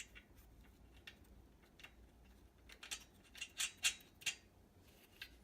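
Light metallic clicks and taps of bolts being handled and fitted into a steel rack frame. A few sharper clicks come close together a little past the middle.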